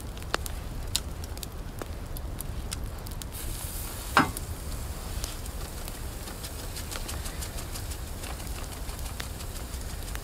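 A slab of pork sizzling on a cast-iron grill grate over a wood fire, with scattered small crackling pops. A single short slap about four seconds in, when the meat is turned over onto its other side.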